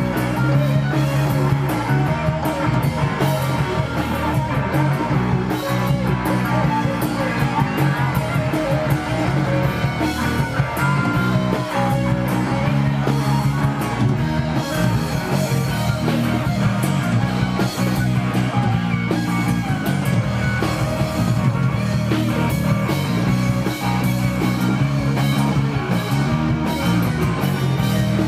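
Live rock band playing loudly and steadily, with electric guitar prominent.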